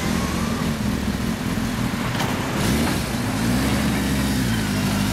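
1975 Kawasaki Z1B's 903cc air-cooled inline four idling through its four-pipe exhaust. The engine speed rises slightly about three seconds in.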